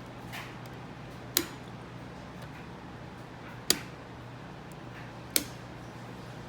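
Wall light switch clicking three times, each a single sharp snap, over a steady low room hum.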